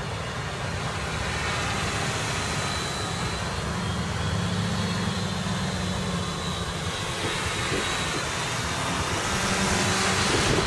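Small electric quadcopter's motors and propellers whining as it flies in gusty wind, with a faint steady high tone, getting louder near the end as it comes close. A low wind rumble runs under it.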